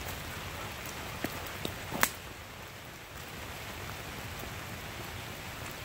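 Steady rain falling, with a few short sharp ticks, the loudest about two seconds in.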